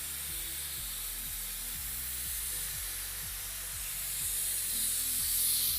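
Hiss of air from a rig air compressor over a low, steady engine rumble; the hiss swells about four seconds in.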